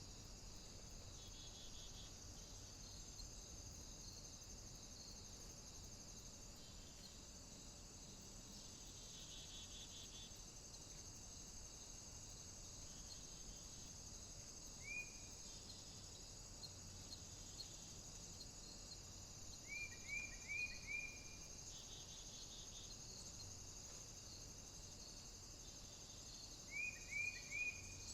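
A faint, steady chorus of crickets trilling. A few short, higher chirps sound over it: one about halfway through, then two quick runs of four near the end.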